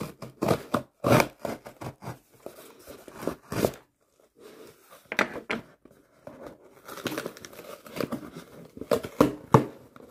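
Hands handling and opening a cardboard shipping box: irregular scraping and tearing of cardboard and tape, with several sharp knocks and a couple of short pauses.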